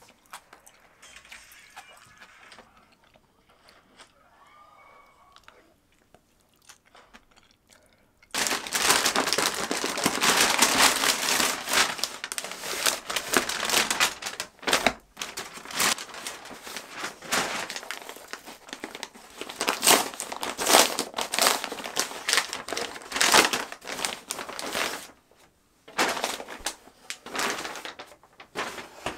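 Paper parcel packaging crinkling and rustling loudly as it is handled and unwrapped, starting suddenly about eight seconds in, with a short pause near the end.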